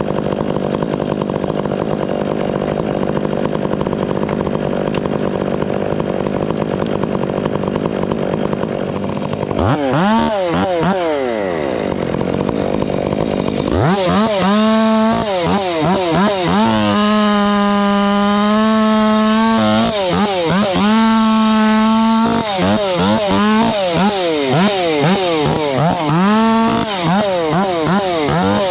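Two-stroke chainsaw running at full throttle in a cut for the first nine seconds or so, then revved up and down over and over, with several stretches held at full revs.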